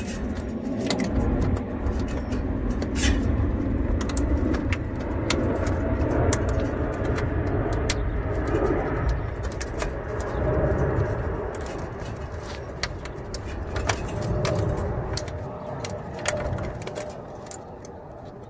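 Scattered clicks and rustling of wires being worked through the access hole in the condenser unit's sheet-metal cabinet, with handling of the phone, over a low rumble that fades in the last few seconds.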